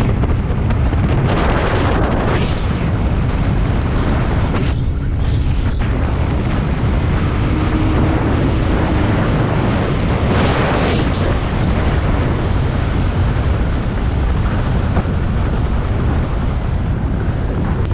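Mercury 125 two-stroke outboard motor running steadily while the boat is under way, with wind rushing over the microphone and gusting louder a couple of times.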